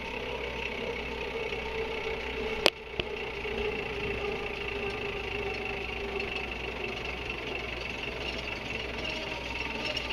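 J79 turbojet compressor turning slowly in the intake, a steady mechanical whir and hum with a light rattle from the loosely held compressor blades starting to shift in their wheels. There is one sharp click about two and a half seconds in.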